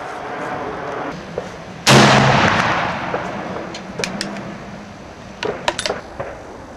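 A single shot from a Snider-Enfield Mk III cavalry carbine firing a copy of the black-powder Mk IX cartridge: one loud report about two seconds in that dies away over a second or so, with the heavy muzzle blast of its short barrel. A few sharp clicks and knocks follow.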